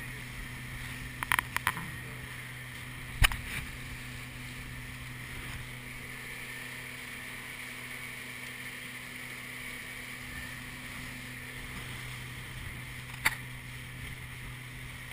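Small motorboat's engine running steadily underway, a constant low drone. A few sharp knocks cut through it: a quick cluster about a second and a half in, the loudest about three seconds in, and one more near the end.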